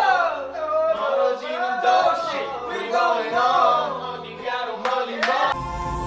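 Several young men singing loudly together in a melodic, chant-like way. About five and a half seconds in it cuts off suddenly to a different background of music.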